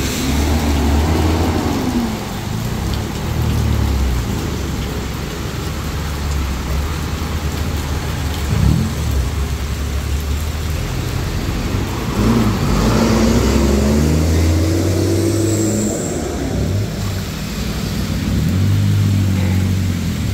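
Cars and a box truck driving past on a rain-soaked road, their tyres hissing through standing water and their engines swelling as each goes by, over the steady noise of heavy rain. The louder passes come at the start, about twelve seconds in, and near the end.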